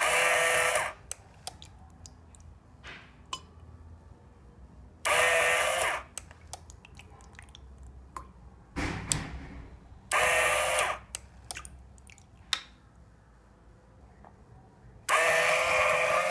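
Small 12 V DC diaphragm water pump switching on in short bursts of about a second, four times about five seconds apart, with the last one still running at the end; each burst pours water into a bottle cap on the conveyor. Light sharp clicks come between the bursts.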